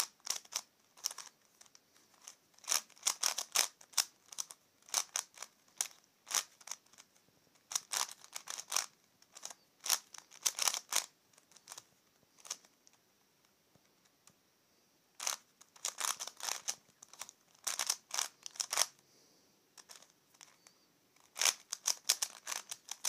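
Plastic C4Y 3x3x5 cuboid puzzle turned rapidly by hand: quick runs of clicking and clacking layer turns, with a pause of about three seconds in the middle.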